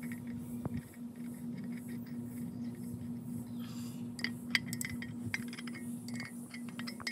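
Irregular metallic clicks and clinks of a steel wrench being handled against threaded fittings on an aluminium oil cooler, getting busier about four seconds in, over a steady low hum.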